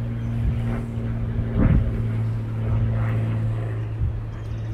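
A low, steady engine drone holding one pitch throughout, with a brief louder burst of noise about a second and a half in.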